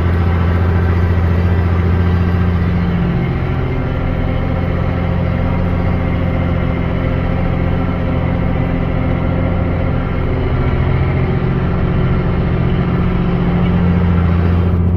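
Deutz-Fahr Agrotron tractor's diesel engine running steadily under load while pulling a five-furrow plough. Its note changes about three seconds in and returns to the first note near the end.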